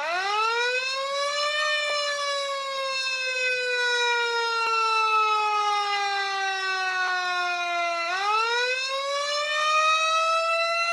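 Fire truck siren wailing: the pitch sweeps up, slides slowly down for about six seconds, then sweeps up again about eight seconds in.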